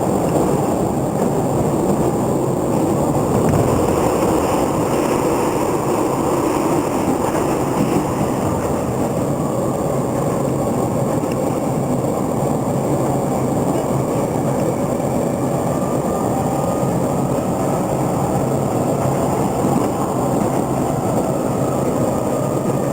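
Interior running noise of a JR East E231 series 800-subseries commuter train at speed: a steady, loud rumble of wheels on the rails, heard from inside the car.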